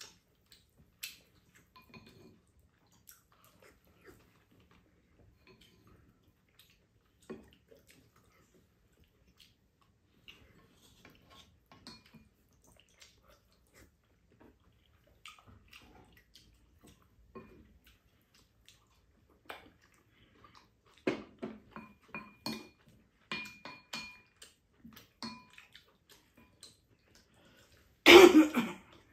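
Spoons and chopsticks clinking and scraping against ceramic bowls and a pan during a meal, scattered and sparse at first, busier in the last third, some clinks ringing briefly. Near the end, a loud short cough.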